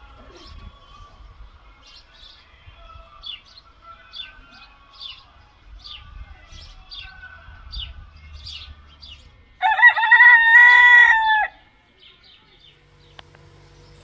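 A rooster crows once, loudly, for about two seconds near the end. Small birds chirp in quick short notes before it.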